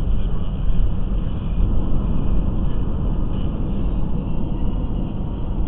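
Steady road and engine noise of a car driving at highway speed, heard from inside the cabin, mostly a low, even rumble.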